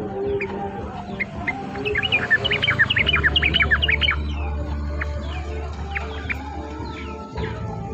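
Songbird chirping: scattered single chirps, then a dense run of quick, high, sharp notes about two to four seconds in. Underneath are other lower bird calls and a steady low hum.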